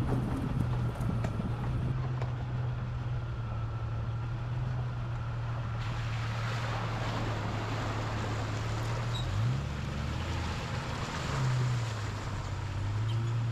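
1999 Jeep Cherokee XJ running down the road: a steady low engine drone with tyre and road noise. The engine pitch drops and comes back up twice, a little past the middle.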